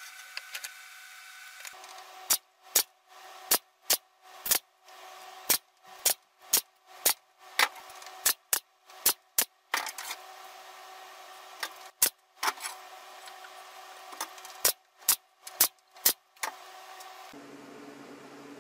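Pallet-wood slats being fitted onto a wooden frame: a long series of about two dozen sharp wooden knocks, sometimes two a second, with a short pause about two-thirds of the way through.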